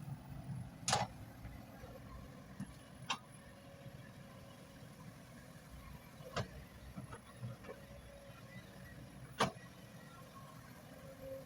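Excavator diesel engine running as a steady low rumble, with four sharp knocks spread through it, the loudest about a second in and near the end.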